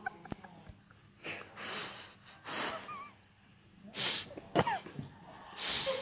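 A sleeping person snoring: a series of noisy, wheezy breaths every second or so, with a short whistling squeak on one breath a little past the middle.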